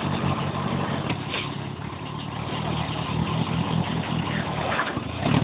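A vehicle's engine running steadily, its low hum easing a little about two seconds in and then building again.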